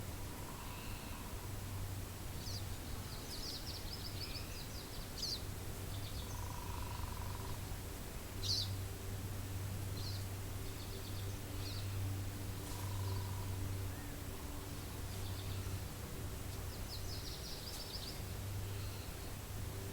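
Steady wind ambience with a low rumble, over which birds give scattered high calls: short trilling runs and a few sharp chirps. A soft, lower note of about a second recurs roughly every six seconds.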